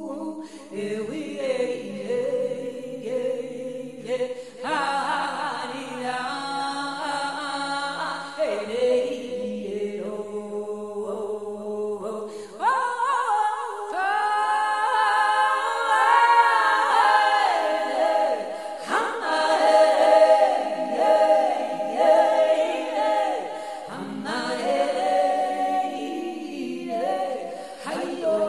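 Unaccompanied vocal music: several voices singing together without instruments, the melody shifting through a few sections.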